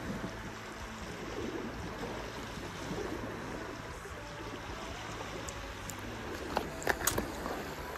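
Small sea waves lapping and washing against shoreline rocks. A few sharp clicks and taps come close together about seven seconds in.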